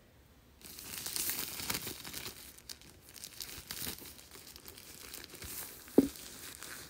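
Clear plastic cellophane wrap crinkling and tearing as it is pulled off a cardboard gift box, starting about half a second in. A single sharp knock near the end as the box is turned over.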